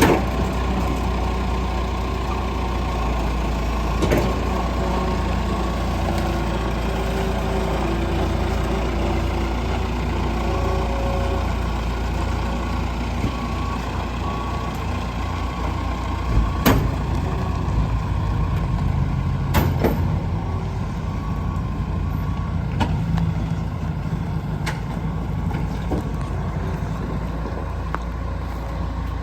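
Heavy diesel truck engine running steadily at low revs, with a few sharp knocks along the way, the loudest about 17 and 20 seconds in.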